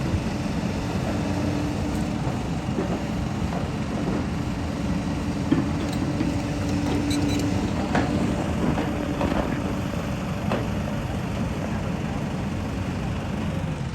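An engine running steadily with a low rumble and a faint hum, with a few light knocks in the middle.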